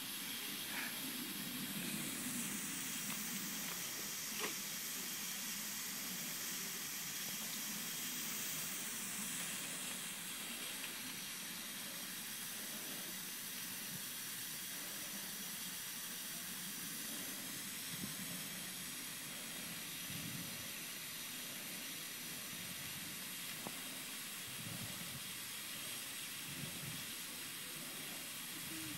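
Steady hiss of a lawn sprinkler spraying water.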